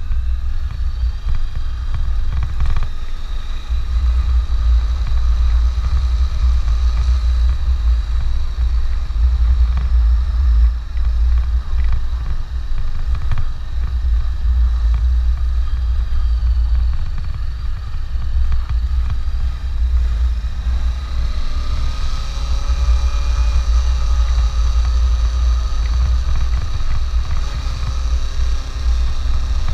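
Honda CB500X's parallel-twin engine running while the motorcycle is ridden, under heavy wind buffeting on the microphone. The engine note grows more prominent about two-thirds of the way through.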